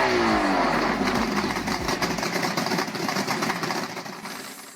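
An engine running, its pitch sliding down over the first second and a half, then fading out near the end.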